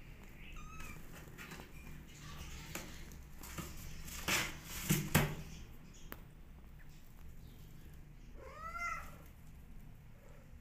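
Kitten meowing: a couple of faint short calls in the first second, then one clear meow that rises and falls in pitch near the end. Brief rustling scrapes about four to five seconds in are the loudest sounds.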